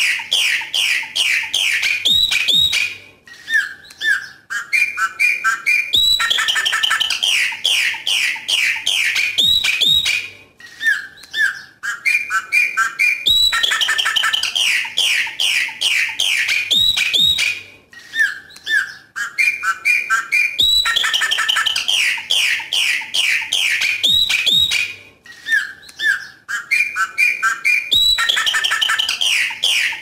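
Chopi blackbird singing its 'coqui coqui' song: a quick run of clear whistled notes, then a short gap and a sparser series of lower notes. The same phrase repeats about every seven seconds, four times.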